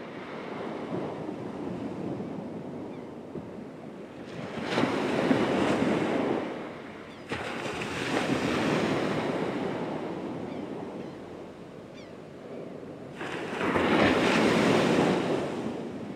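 Ocean surf washing onto a sandy beach, the noise swelling and falling back three times as waves break and recede.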